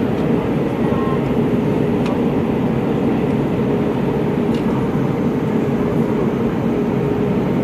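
Steady in-flight cabin noise of an Airbus A319: engine drone and airflow rush, with a constant hum.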